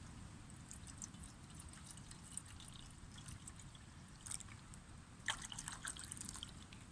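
Faint trickling and dripping of water with scattered small clicks, busiest a little past the middle.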